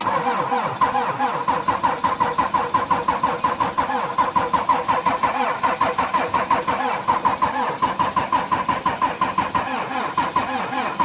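Toyota Mark II diesel engine being cranked over by the starter in a −35 °C cold start after three rounds of glow-plug heating. It turns over in an even rhythm of several beats a second without firing up, and it stops abruptly near the end.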